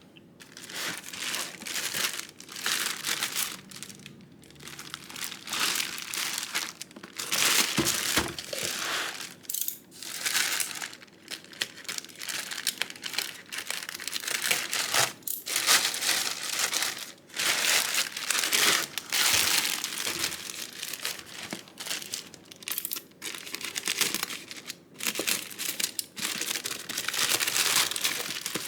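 Packaging crinkling and rustling in irregular bursts as a boxed keyboard is unwrapped by hand.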